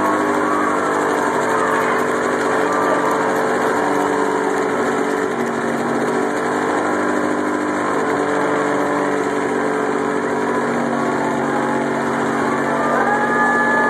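Small-block Chevy V8 in a Pontiac Fiero held at steady high revs during a burnout, its tyres spinning. The engine note stays constant, dipping slightly in pitch about five seconds in.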